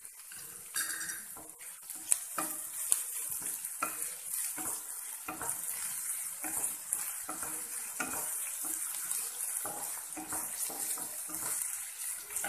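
Onions and ginger-garlic paste sizzling in oil in a nonstick frying pan while a spatula stirs and scrapes them, about two to three strokes a second. Two sharper knocks of the spatula on the pan about two and three seconds in.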